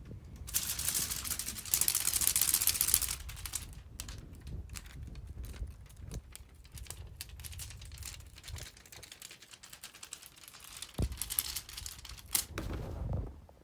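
Crinkling and rustling with many scattered sharp clicks, loudest in the first few seconds and again near the end.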